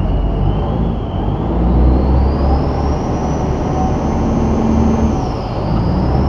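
A river boat's engine running loud and steady under way, with a deep hum and a high whine that rises about two seconds in and dips briefly near the end.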